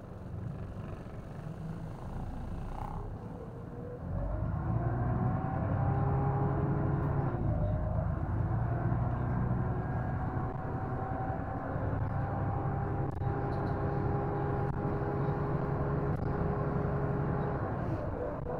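Diesel engine and drivetrain of an East Lancs Omnidekka double-decker bus pulling away: a whine rises in pitch and the engine grows louder about four seconds in, then runs on steadily with an even whine over the rumble.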